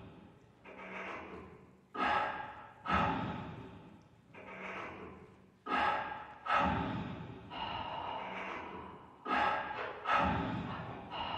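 Dance soundtrack made of amplified breath sounds: sharp gasps, two close together and then a softer swelling breath, each fading away slowly, repeating every one to two seconds.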